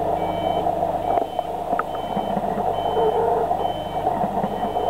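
Propane forklift backing up with a load: its reversing alarm beeps a little faster than once a second over the steady running of its engine, with a couple of faint knocks.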